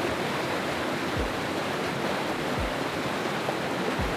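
Steady rushing of a stream swollen with snowmelt water, with a soft low thud recurring about every second and a half.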